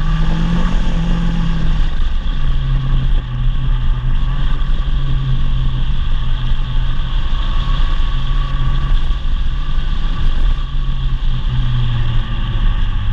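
Rally car engine running loud and steady under way, heard from on board with tyre and road noise. Its pitch drops a little about two seconds in and again near the end as the revs ease.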